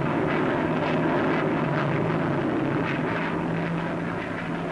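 Jet noise from a Gloster Javelin's twin Armstrong Siddeley Sapphire turbojets as the delta-wing fighter climbs steeply: a steady rushing noise over a low hum, easing slightly near the end, on an old newsreel soundtrack.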